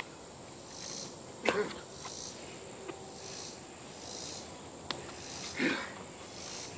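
Insects chirping in a slow, even pulse of about one chirp a second, with two short sharp sounds from the wrestlers' scuffle, about one and a half seconds in and again near the end.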